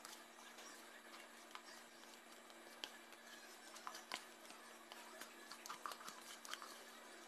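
Near silence, with a few faint light clicks and taps from a plastic mixing bowl and hands handling an aluminium baking pan as thick cake batter is poured in. Most of the clicks come in the second half.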